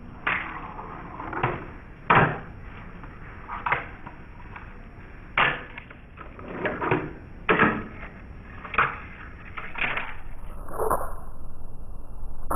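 A Tech Deck fingerboard clacking against a small rail-and-stairs obstacle as it is flipped, landed and slid. There are about ten sharp clacks, some with a short scrape after them, then a steady hiss for the last couple of seconds.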